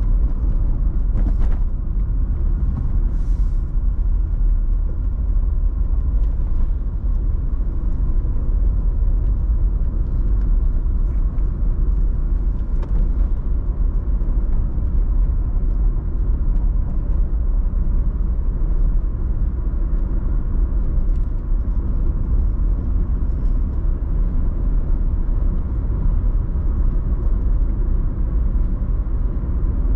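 Steady low road rumble of a car driving, with no change in engine speed.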